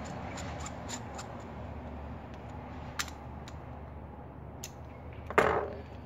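Small metallic clicks and ticks of a screwdriver screwing a part back into a small-engine carburetor body. A sharper click comes about three seconds in, and a louder clatter follows near the end.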